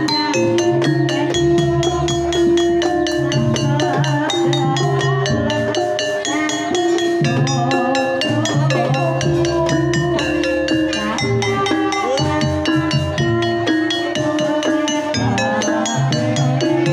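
Javanese gamelan ensemble playing a Banyumasan tayub piece: held, ringing struck notes over the steady beat of a hand-played kendang drum.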